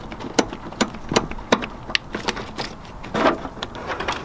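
A string of sharp metal clicks and taps, about two or three a second, as the Miata's clutch hard line is loosened at its 10 mm fitting and worked free. There is a brief scraping sound a little after three seconds in.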